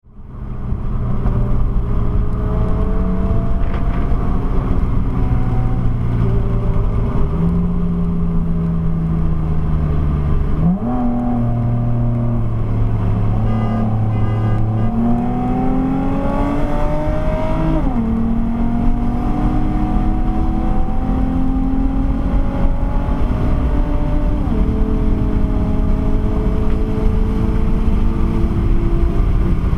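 Car engine heard from inside a moving car. It runs steadily at first, jumps in revs about a third of the way in, then accelerates hard, its pitch climbing and dropping sharply twice at gear shifts. A steady low road rumble runs underneath.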